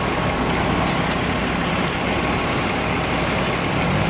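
Fire trucks and an ambulance idling close by, a steady engine drone, with a few faint clicks in the first second.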